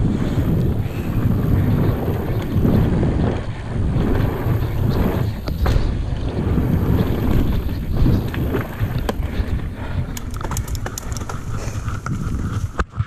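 Wind buffeting the camera microphone and tyres rolling on a dirt trail as a Yeti SB150 mountain bike descends at speed. From about ten seconds in, a run of sharp clicks and rattles from the bike.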